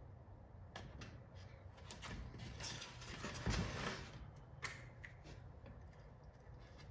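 Workbench handling sounds of a wooden dowel plug being glued into a hole: scattered light clicks and knocks, a rubbing noise that swells to a peak in the middle, and a sharp click soon after.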